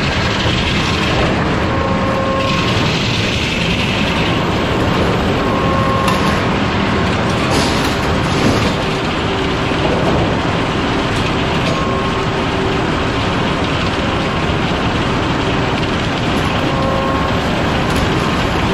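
Sawmill machinery running: the circular head saw, roller tables and conveyors make a loud, steady din, with a faint tone that comes and goes every few seconds.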